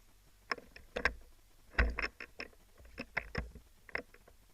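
A run of irregular sharp clicks and knocks, some with a dull thump; the loudest comes a little under two seconds in.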